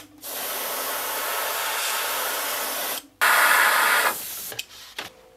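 Airbrush spraying paint in a steady hiss for about three seconds. Then comes a louder rush of air for about a second from a hair dryer blown over the lure to dry the fresh paint.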